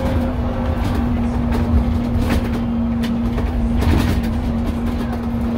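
Dennis Trident double-decker bus driving at steady road speed, heard from inside the cab: a constant low engine and road rumble with a steady hum. A few short clicks and rattles come through.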